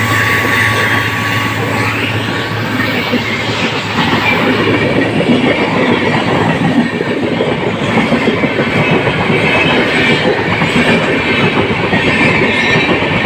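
Indian Railways passenger train passing at close range, its coaches' wheels clattering and rattling steadily over the rail joints. A low hum from the train fades out within the first few seconds.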